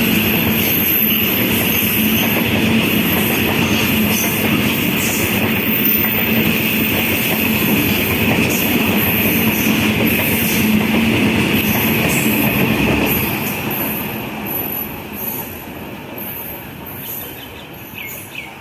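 Freight train hauled by a WAG-9 electric locomotive passing at speed: the rumble of rolling wheels on the rails with wheel squeal and clatter, fading away steadily from about thirteen seconds in as the train moves off.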